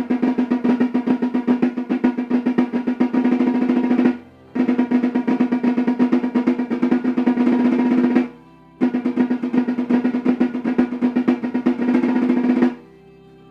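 Snare drum played with sticks in rapid Swiss army triplet strokes with shifting accents, in three runs of about four seconds each separated by short pauses; the drum rings with a steady low tone under the strokes.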